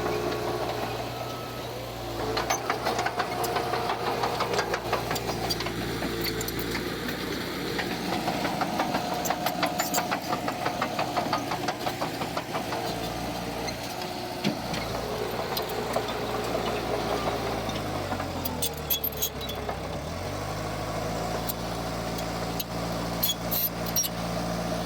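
Heavy diesel engine of earthmoving machinery running steadily, with a rapid knocking clatter for much of the time. Near the end the engine revs drop for about two seconds and then pick back up.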